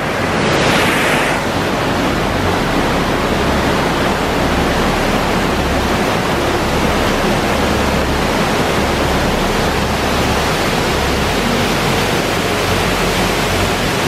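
Lady Barron Falls in heavy flood flow: a loud, steady rush of falling water.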